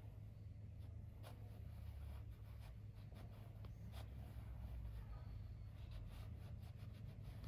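Faint rubbing and light scratching as tyre-lettering decals are pressed and smoothed onto a scooter tyre by hand, with scattered soft ticks over a low steady hum.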